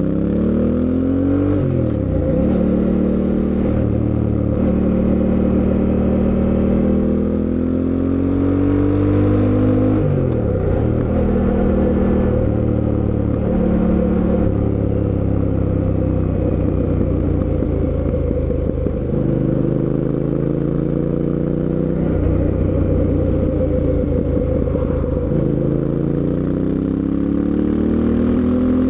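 Fantic Caballero 700's 689 cc parallel-twin engine under way. It pulls up through the gears, with the pitch rising and then dropping at upshifts about a second and a half and ten seconds in. It then holds fairly steady, sags as the throttle eases, and climbs again near the end under renewed acceleration.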